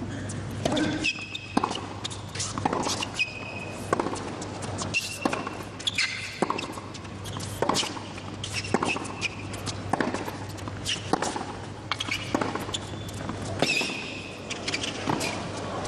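A long tennis rally on a hard court: racket strikes on the ball about once a second, with ball bounces and short high shoe squeaks in between, beginning with a serve.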